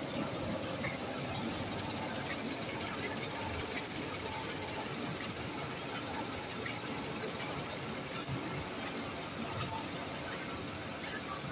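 Toilet roll making machine running: a steady mechanical hum and high whine, with a sharp click about every one and a half seconds and a fast run of light ticks near the middle.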